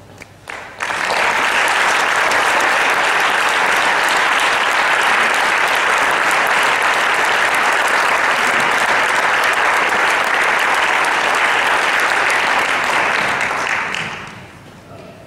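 Concert audience applauding. A few first claps build to full, steady applause about a second in, which dies away near the end.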